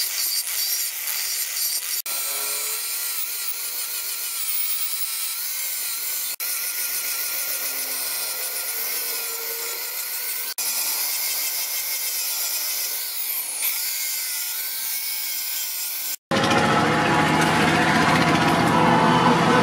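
Electric angle grinders grinding and sanding a steel claw-hammer head: a steady high hiss with the motor's wavering whine, broken by three brief cuts. About sixteen seconds in it changes abruptly to a louder, lower steady roar.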